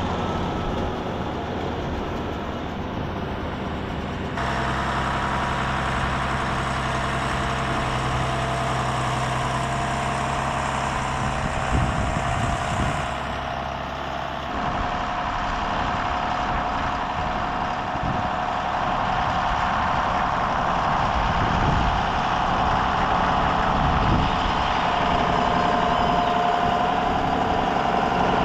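Diesel tractor engine running steadily. Its tone shifts abruptly about four seconds in and again around fourteen seconds.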